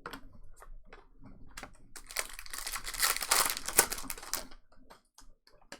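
Trading card pack wrapper crinkling for a couple of seconds in the middle, with light clicks and taps from cards being handled before and after.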